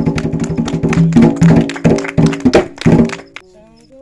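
Atabaque hand drums played in a fast, dense flourish of strikes, their low pitched heads ringing, that stops about three seconds in; a single held tone carries on after it.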